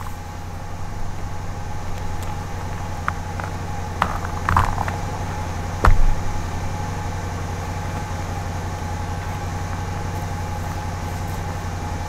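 Four-wheeler engine running steadily at idle, with a few boot stamps on thin stream ice about four and six seconds in; the last and loudest stamp cracks the ice.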